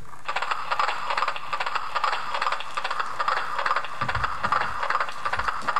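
A small toy's mechanism clicking in a fast, steady rattle, starting suddenly just after the start, with a couple of low thumps near the end.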